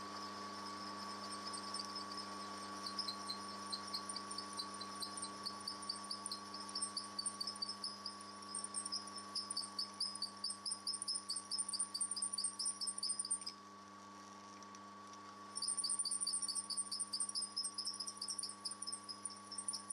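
A twist drill driven by a motor-powered spindle cutting into an aluminium Revtech 110 V-twin cylinder head. A steady motor hum sits under a rapid, high-pitched squeaking chatter from the cutting edge. The chatter stops for about two seconds past the middle, then starts again.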